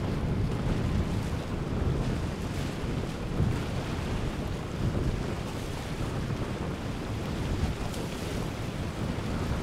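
Wind buffeting the microphone with a low, uneven rumble, over the wash of surf and breaking waves.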